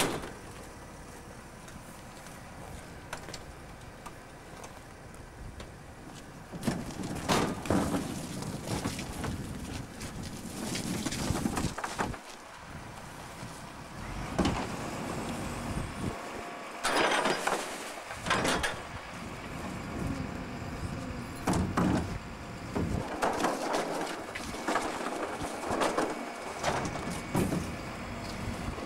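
Norba RL200 rear-loading refuse truck's compactor at work: the packer blade sweeping and crushing bagged trash in the hopper. Steady running at first, then repeated loud crunching and clattering from about seven seconds in.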